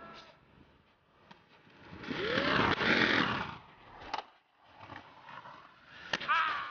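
Inline skates grinding on concrete ledges: a loud scraping grind lasting about a second and a half, starting two seconds in, and sharp clacks of the skates striking the ledge and ground, the loudest about four and six seconds in.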